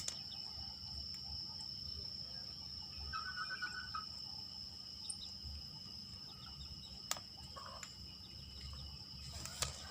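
Faint, steady, high-pitched insect trill, like crickets in the background, with a few faint clicks.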